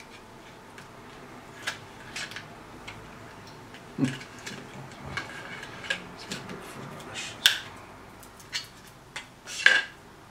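Small electronic components and clear plastic packaging handled on a workbench: irregular light clicks, taps and rustles, the loudest two near the end.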